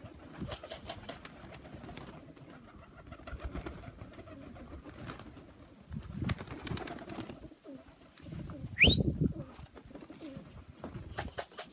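Pigeons cooing, with scattered short rustling and knocking noises. About nine seconds in comes the loudest sound, a short rising whistle.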